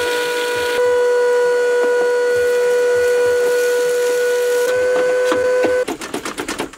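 Upright vacuum cleaner running through its hose, a steady high whine, sucking broken window glass out of a truck door. The whine steps up slightly in pitch near the end, then cuts off suddenly, followed by a quick run of clicks.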